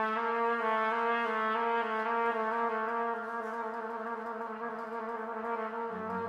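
Trumpet holding one long, steady note. Low strings come in softly underneath near the end.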